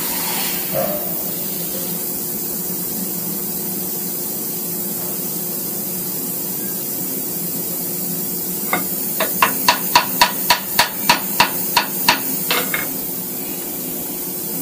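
A small hammer tapping a machine vise on a milling machine table, a quick run of about fifteen taps over some four seconds starting about two-thirds of the way in, knocking the vise square against a dial indicator. Before the taps there is a steady background hiss.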